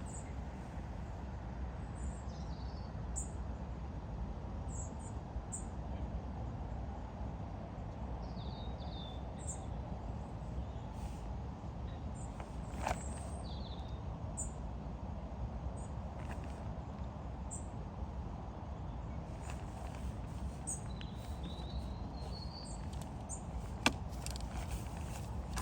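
Small birds chirping now and then, short high calls, over a steady low outdoor background noise. A sharp click about halfway through and another near the end.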